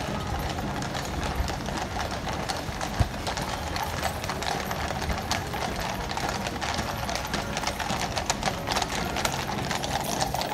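Hooves of a column of Household Cavalry horses walking on wet tarmac, many overlapping strikes making an irregular clip-clop.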